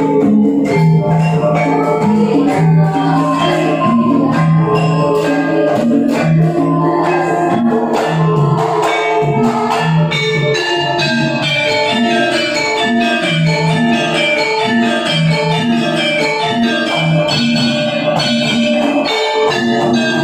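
Javanese gamelan ensemble playing: bronze metallophones and gong-chimes ring out a steady run of notes over low gong and kendang drum strokes, with no singing.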